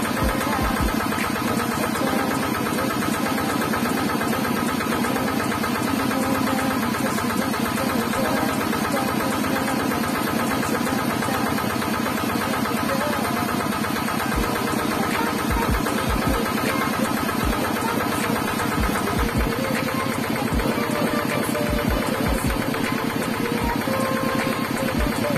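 Small motorised coconut grater running steadily as a coconut half is pressed against its spinning blade: a fast, even rattling motor noise, with a few low thumps in the second half.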